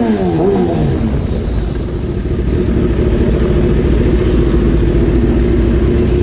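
Kawasaki inline-four superbike with an aftermarket exhaust: the engine note rises and falls quickly about a second in, as it revs and shifts, then settles into a steady drone over a deep low rumble.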